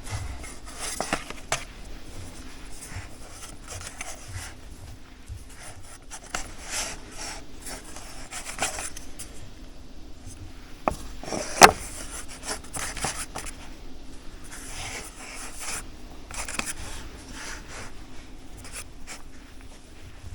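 Hands working with the shaped brioche dough and its baking forms: soft rubbing and scraping handling sounds, with one sharp knock just past halfway.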